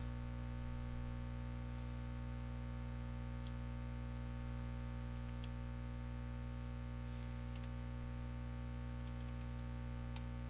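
Steady electrical hum with a stack of overtones, with a few faint computer keyboard keystrokes scattered through it.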